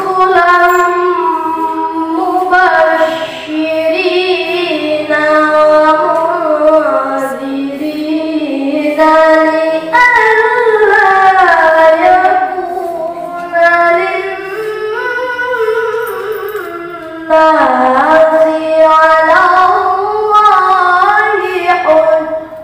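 A child reciting the Quran in the melodic tilawah style into a handheld microphone. The high voice holds long, ornamented, gliding notes in several phrases, with brief pauses for breath between them.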